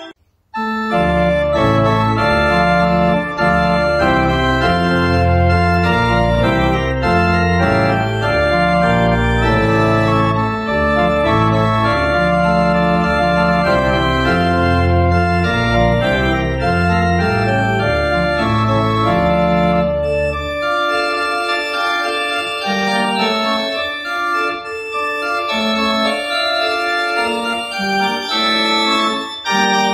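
Church organ playing sustained chords, starting about half a second in. A deep bass line runs under the chords and drops out about twenty seconds in, leaving only the higher voices.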